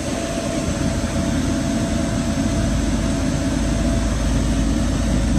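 Steady road and engine noise heard inside the cabin of a moving vehicle, its tyres running on a snow-covered highway, with a faint steady hum that fades out about three seconds in.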